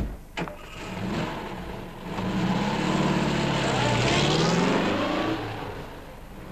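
A car door shuts with a thump, then a Volkswagen Beetle's engine revs up, rising and falling in pitch as the car is driven off, and fades away near the end.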